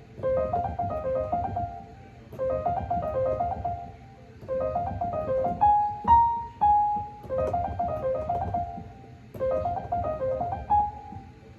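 Keyboard with a piano tone playing a short phrase of quick notes, repeated five times with brief pauses between; in the fourth phrase it ends on a longer, higher held note.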